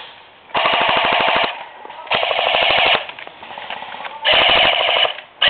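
Airsoft gun firing full-auto bursts: three rapid rattling bursts of just under a second each, with a fourth starting near the end.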